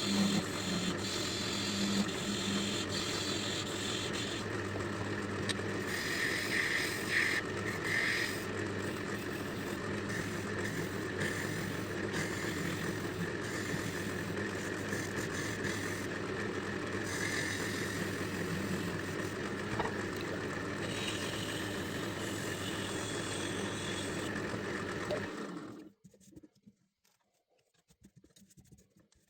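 Wood lathe running, its motor humming steadily while a turning tool scrapes at a spinning epoxy resin blank. The sound stops abruptly near the end.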